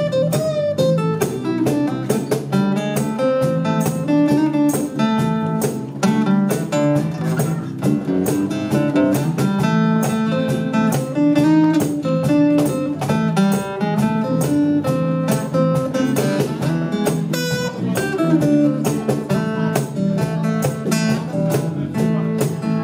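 Live band of acoustic and electric guitars with a small strummed stringed instrument playing a bluesy instrumental passage with no singing: a steady strummed rhythm under a line of picked notes.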